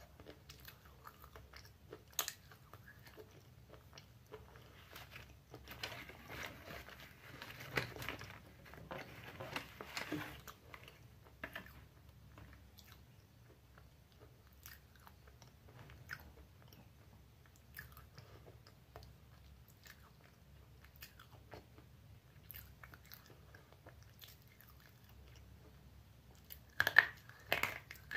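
A person biting and chewing Bablu-brand slate pencil: crisp crunching, busiest over the first dozen seconds, then sparse small clicks, then a few loud sharp bites near the end.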